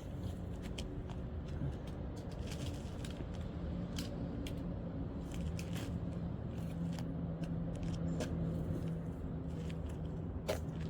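Steady low motor hum with scattered light clicks and taps.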